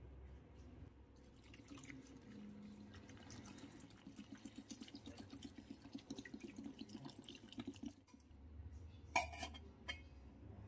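Water poured from a plastic bottle into a stainless steel pot of orange peels, gurgling in quick, even pulses. About nine seconds in, the steel lid is set on the pot with a sharp metallic clank, then a smaller clink.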